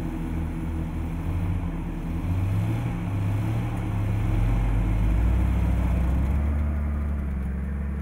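Four-wheel-drive vehicle engine running under load, its pitch rising about two seconds in and again, louder, around four to five seconds in, then settling into a steady lower drone near the end.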